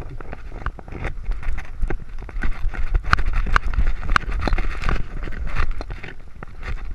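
Collar-mounted action camera on a running dog: a dense, irregular run of knocks and clicks from paw falls and the camera bouncing on the collar, over a steady low rumble of handling noise.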